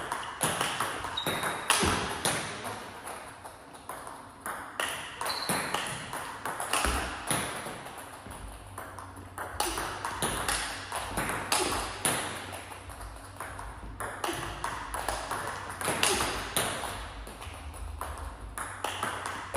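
Table tennis balls being hit in a fast multiball drill: a quick, uneven run of sharp clicks as the ball strikes the bat and bounces on the table, several hits a second.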